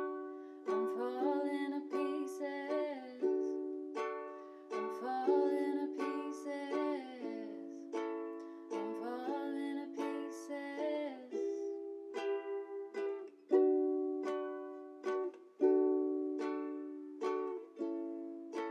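Round-bodied ukulele strumming chords. Each strum rings and dies away, and the chords change every second or so. In the second half the strums come more sparsely and are left to ring longer.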